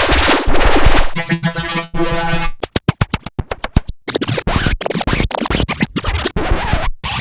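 Record-scratch sound effect in several edited variations one after another: a plain scratch, then a version turned into a buzzing pitched tone, then a fast stuttering repeat about three seconds in, then more scratches.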